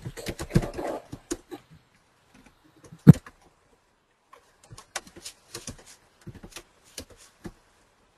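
Scattered clicks of computer keyboard keys and a mouse, coming in small clusters, with one louder knock about three seconds in.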